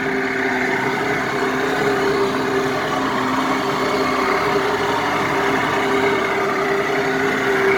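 Jet-drive engine of a 1992 Sea Ray boat running at a steady speed, a constant drone over a steady rushing noise.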